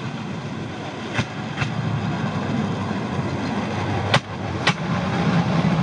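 Bamboo train (norry) running on the rails, its small petrol engine and the wheels making a steady drone and rumble. Sharp metallic clacks come in two pairs, about a second in and about four seconds in, as the wheels cross rail joints.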